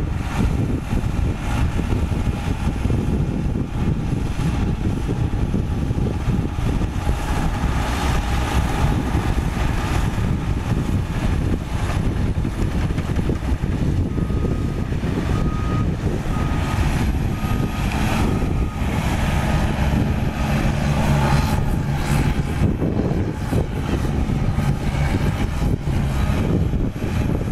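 Caterpillar D5K2 XL crawler dozer's four-cylinder diesel engine running steadily under load while it pushes dirt, with its steel tracks clanking.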